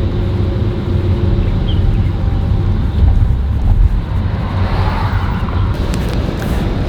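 Heavy diesel construction machinery running steadily, a low engine noise with a few steady tones, cutting in abruptly.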